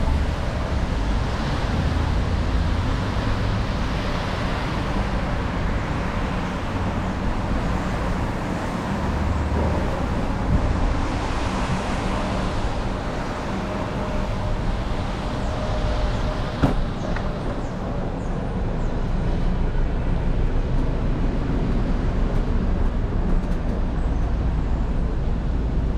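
Street traffic on wet roads: vehicles passing, their tyre noise swelling and fading one after another, with a single sharp click about two-thirds of the way through.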